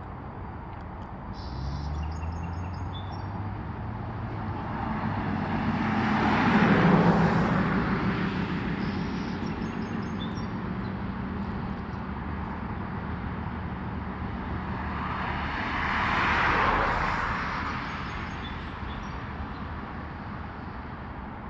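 Two road vehicles driving past one after the other, about nine seconds apart. Each one swells up as a rush of tyre and engine noise and then fades away, and the first carries a low engine hum.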